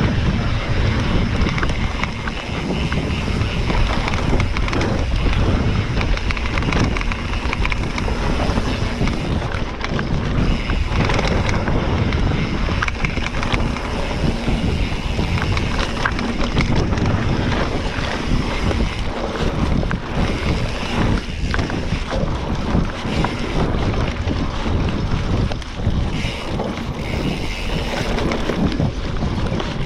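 Wind rushing over the microphone of a camera on a moving mountain bike, over the tyre and rattle noise of riding a dirt trail, with many small knocks.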